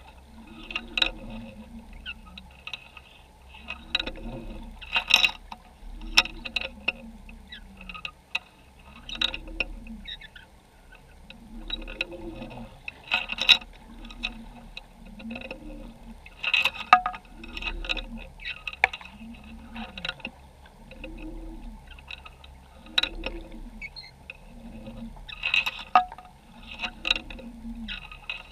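Underwater sound picked up by a GoPro in its waterproof housing on the seabed: a low hum that swells and fades every second or so, with scattered clicks and crackles.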